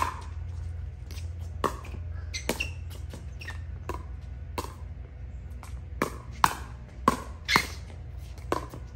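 Pickleball rally: sharp pops of paddles hitting a plastic pickleball, with bounces of the ball on the court, about a dozen hits at uneven spacing, some quicker exchanges near the middle. A steady low hum runs underneath.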